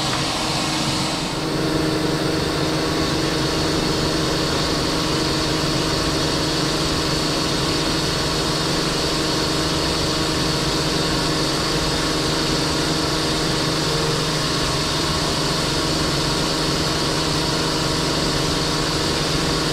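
High-pressure sewer jetting running steadily: a continuous roar and hiss of the jetting nozzle working through the drain pipe, with a steady machine hum under it.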